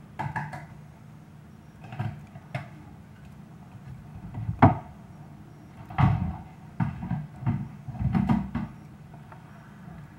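Irregular knocks and dull thumps over a low steady hum. The sharpest knock comes about four and a half seconds in, and a cluster of thumps follows from about six to eight and a half seconds.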